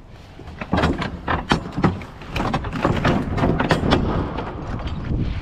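Footsteps crunching as someone walks, about three or four steps a second, over a steady low rumble of wind on the microphone.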